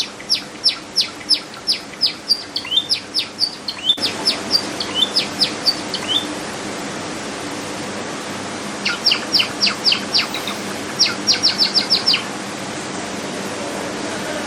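Java sparrows chirping: quick runs of short, high chirps over a steady background hiss, pausing for a few seconds midway before two more bursts.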